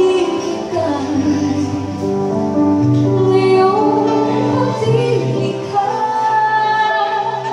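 A woman singing live into a microphone, holding long notes, accompanied by electric keyboard and acoustic guitar.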